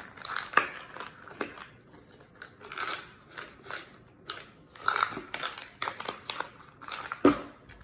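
Plastic vitamin bottle being handled and opened: a run of sharp clicks and crinkly crackles as the cap is twisted off and a tablet is shaken out.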